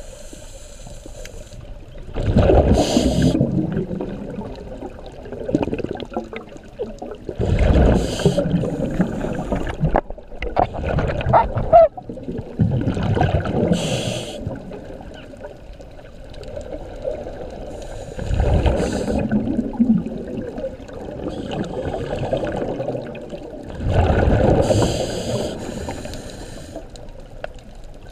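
Scuba diver breathing through a regulator underwater: five bubbling exhalations, about one every five to six seconds, with a hiss from the regulator between them.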